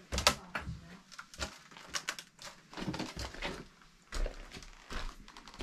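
A string of irregular knocks, clicks and crunches, several a second at times, the loudest just after the start.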